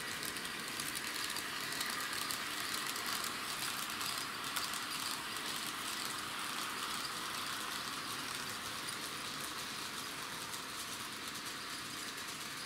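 TT-gauge model trains running on the layout's track: the small electric motors and wheels on the rails make a steady, even noise, with faint ticks in the first few seconds.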